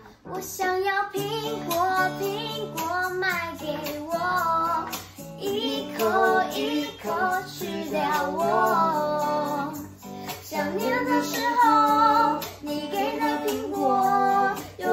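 A young girl singing a song over instrumental accompaniment with steady held low notes, rehearsing.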